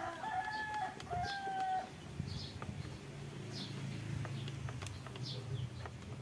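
A rooster crowing, the call ending about two seconds in. Short high chirps repeat throughout, and a low steady hum runs underneath in the later part.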